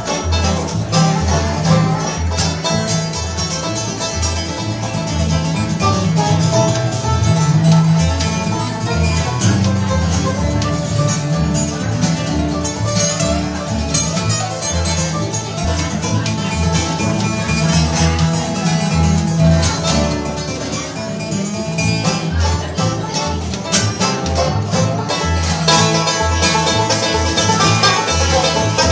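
Live bluegrass band playing: strummed acoustic guitar and picked banjo over an upright bass walking out a steady beat.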